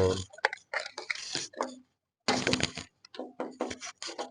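Handling noise as multimeter test probes and their leads are picked up: irregular clicks, clatter and rustling in quick bursts, with a short pause about two seconds in.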